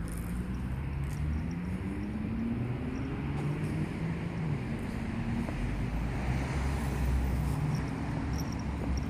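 Engine of a passing motor vehicle, its pitch slowly rising, over a steady low rumble of traffic.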